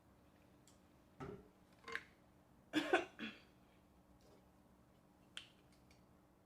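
Close-up eating sounds: a few short mouth smacks and clicks while eating ramen noodles, with a louder cluster about three seconds in and a single click near the end.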